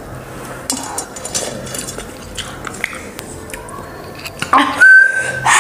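Soft, wet mouth sounds of someone chewing Maggi noodles, with small clicks. About four and a half seconds in comes a loud, short cry with a held high note, a reaction to the burning heat of very spicy food.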